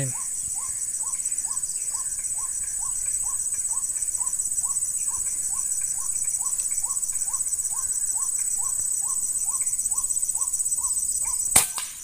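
Insects droning steadily at a high pitch, with a short falling call repeated about twice a second; a little before the end, a single sharp shot from a scoped rifle.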